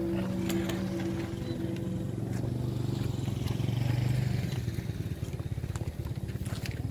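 Vietnamese kite flutes (sáo diều) sounding steady droning tones in the wind, fading out about two seconds in. A low rumble swells and peaks around the middle.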